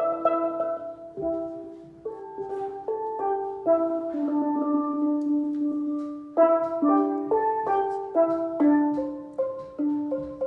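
Steel pan playing a simple melody, one struck note at a time with a few notes held longer. It is a beginner's tune learned over four days.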